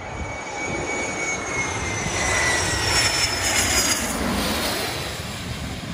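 Small twin-engine business jet flying low overhead with its landing gear down. Its engine whine slides down in pitch as it passes, over a rushing noise that builds to a peak about halfway through and then eases off.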